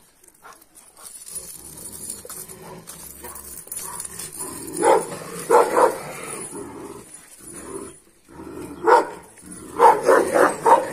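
Kangal shepherd dogs barking: three barks about halfway through, then a quick run of barks near the end.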